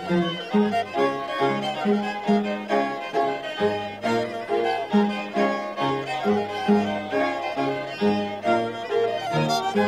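Highland folk string band music: fiddles playing over a bowed bass in a steady, brisk rhythm.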